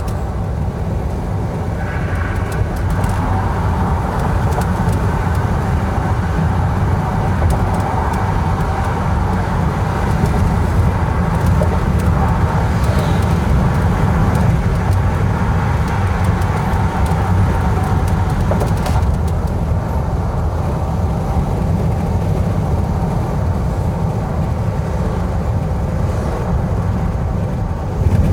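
Steady road and engine rumble heard inside a car cruising on a highway.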